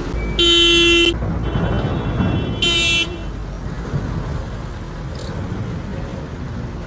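A vehicle horn honks twice, a blast of under a second and then a shorter one, with a fainter tone between them, over the steady rumble of road traffic.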